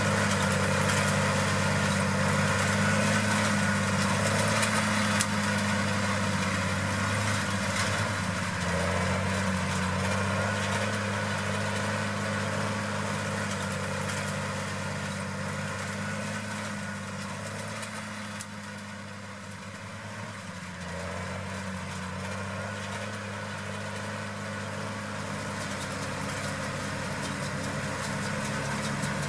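Case IH tractor's diesel engine running steadily at constant speed, getting quieter toward the middle and louder again near the end.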